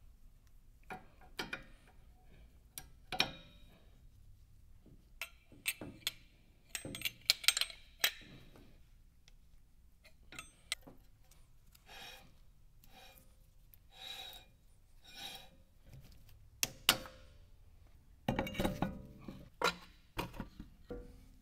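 Metal hand tools and brake parts clinking and knocking at irregular intervals, with a louder stretch of clattering near the end.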